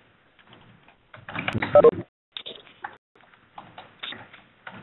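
Scattered clicks and taps of computer-keyboard typing, picked up over a video-conference call line, with a brief louder burst of noise about a second in.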